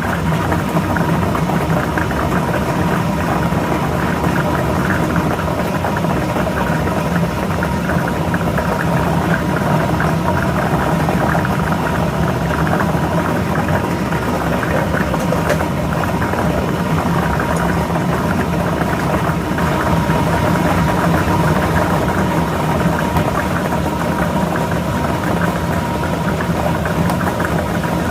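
Lottery ball machine running: a steady motor hum with the balls rattling continuously as they tumble.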